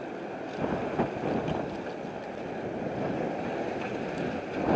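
Strong gusting wind buffeting the microphone: a rushing, rumbling noise that swells about half a second in and builds toward the end.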